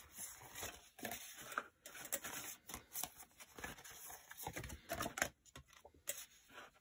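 Sheets of scrapbook paper and card being leafed through and slid over one another: a faint, irregular run of rustles and light clicks.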